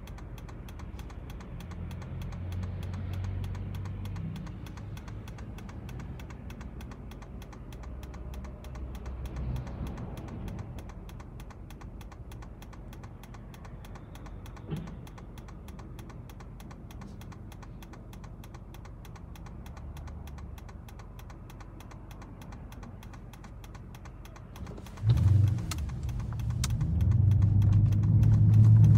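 Toyota Celsior's 4.3-litre V8 idling, heard from inside the cabin, with the turn-signal relay ticking steadily. About 25 seconds in, the engine note rises through the aftermarket 3Cats exhaust as the car pulls away into the turn.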